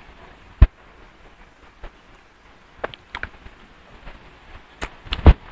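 Eating sounds at a table: quiet chewing and handling of battered quail eggs (kwek kwek) by hand, broken by a few sharp knocks. The loudest knock comes about half a second in, and another comes near the end.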